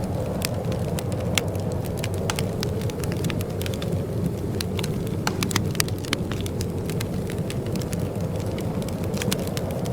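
Wood fire in a fireplace crackling: frequent, irregular sharp snaps and pops over a steady low rumble of the burning.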